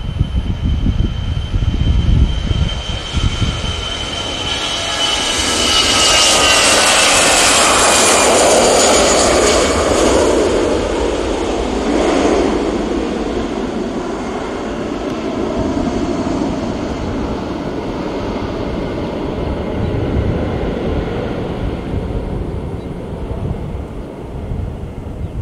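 AirAsia Airbus A320-216's CFM56 jet engines at takeoff power as the airliner climbs out past the spotter: a high whine that slides down in pitch as it passes, loudest from about six to ten seconds in, then a steady rumble that slowly fades as it climbs away.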